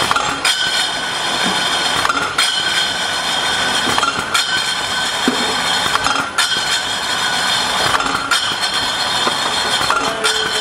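Automatic bottle-labelling machine and conveyor running, with a steady mechanical whir and hum and glass bottles clinking. The sound shifts briefly in a regular cycle about every two seconds.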